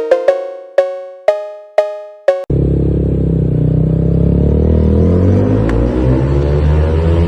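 A few bell-like musical notes struck about twice a second, then an abrupt cut to a Yamaha Sniper 155R's single-cylinder engine running hard through a tunnel, its pitch rising and falling with the revs.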